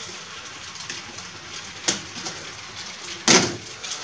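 Packaging noise from boxed model train cars being opened with a small cutter: a single sharp click about two seconds in, then a short, loud crackle of plastic or cardboard near the end.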